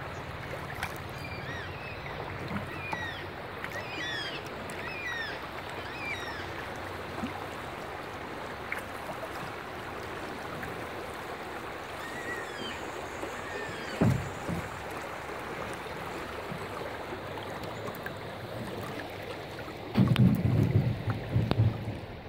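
Shallow river water rushing over a rocky riffle around a canoe, with birds calling in short falling chirps, several in the first few seconds and again about halfway. A single knock comes about two thirds of the way in, and a loud low rumble near the end.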